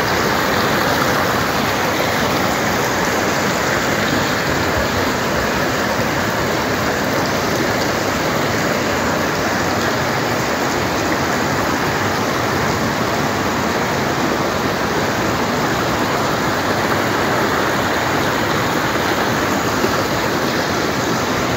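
A shallow creek rushing over and between rocks: a steady, unbroken sound of running water.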